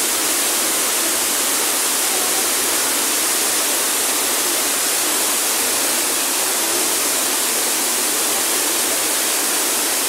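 Waterfall pouring down a rock chute into a gorge: a loud, steady rush of falling water with a strong hiss.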